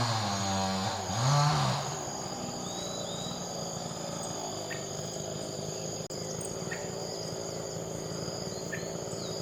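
Steady chorus of insects holding high, unchanging tones, with a few short faint bird notes now and then. A loud, low pitched sound that bends in pitch dies away in the first two seconds.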